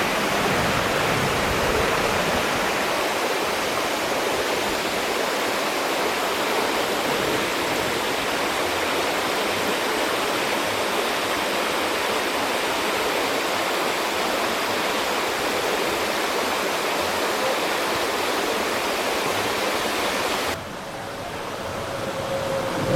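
Flowing stream water rushing in a steady, even hiss, cutting off abruptly near the end.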